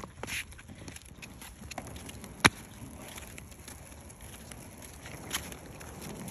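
Plastic wheels of children's quad roller skates rolling over rough asphalt: a low, gritty rumble with scattered clicks, and one sharp click about two and a half seconds in.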